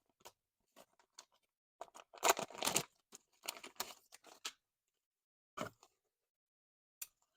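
Printed circuit boards being handled in their plastic packaging: irregular bursts of crinkling and rustling with small clicks, loudest about two to three seconds in.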